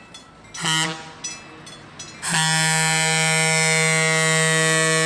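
Western Pacific F7A diesel locomotive's Leslie Tyfon A-200 air horn: a short blast just under a second in, then a long steady blast from a little past two seconds that is still sounding at the end.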